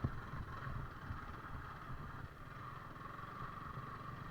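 Yamaha R15 V4 motorcycle's single-cylinder engine running as the bike climbs a hill road, a steady low throb under a steady hiss.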